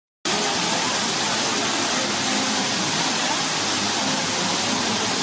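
Steady rush of water running over rocks into the elephant pool, with a faint murmur of voices underneath.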